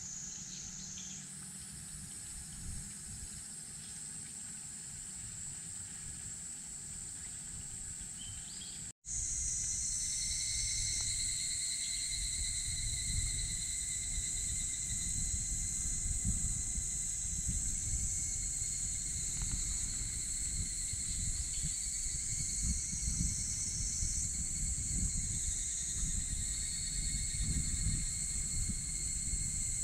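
Outdoor summer insect chorus: several steady, high-pitched insect songs layered together, over a low rumble. The sound drops out for an instant about nine seconds in, then returns louder, with extra lower-pitched insect tones.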